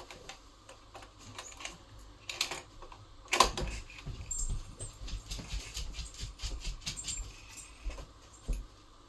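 Scattered clicks and taps of buttons and controls being worked on a Yamaha MD8 MiniDisc multitrack recorder, with one sharper click about three and a half seconds in.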